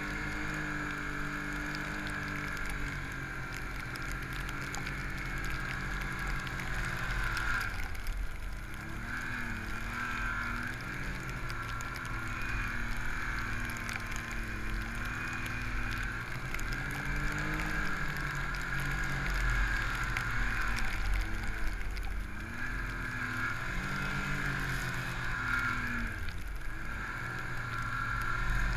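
Snowmobile engine running under load through deep powder, its pitch rising and falling repeatedly as the throttle is worked, with a steady higher whine alongside.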